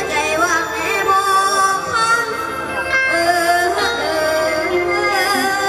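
Live mor lam stage music: a singing voice with a wavering, gliding melody over the band's backing.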